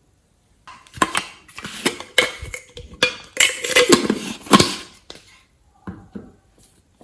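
Slime being mixed and worked in a container: a quick run of wet clicks, pops and squelches lasting about four seconds, then two softer ones near the end.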